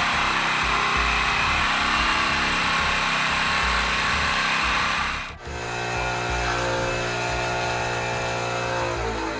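Avadi prototype engine running fast and steady on a test stand, a loud, even buzz. About five seconds in, the sound cuts to a small engine on a bench running at a constant speed with a steady, even hum.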